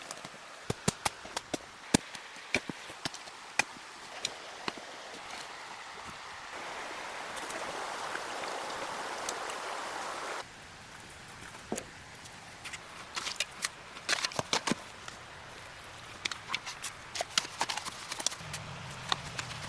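Irregular sharp knocks and taps of wood being worked, over a steady hiss. For about four seconds in the middle, a louder hiss sets in and then cuts off abruptly.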